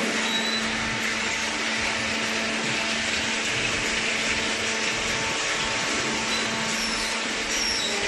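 Cardboard baler's electric motor and hydraulic pump running steadily: a constant hum under a broad, even hiss.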